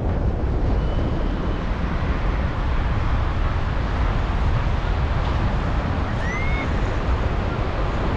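Strong wind rushing over the microphone of a paraglider in flight, a steady low rumbling noise. A brief faint chirp sounds about six seconds in.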